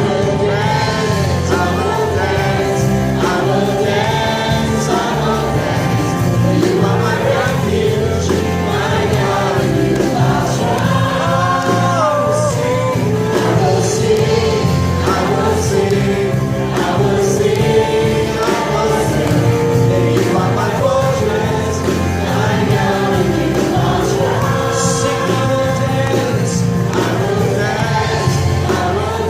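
Gospel worship song: several voices singing together over instrumental backing.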